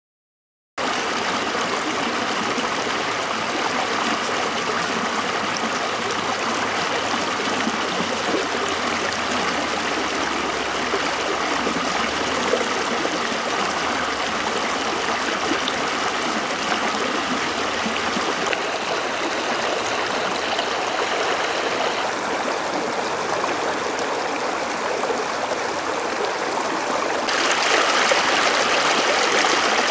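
Shallow river water running and trickling over rocks, a steady rush that turns louder and more splashy near the end.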